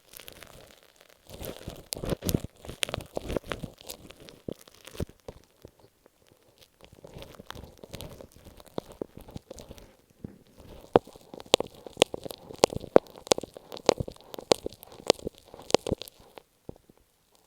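Close-miked ASMR sounds of masking tape on an earphone microphone: crinkling, scratchy rustling at first, then a run of sharp taps, a few per second, through the second half.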